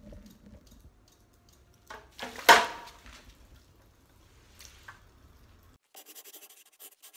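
Water splashing in a glass bowl as a cat paws at it and slops water over the rim, with one loud splash about two and a half seconds in.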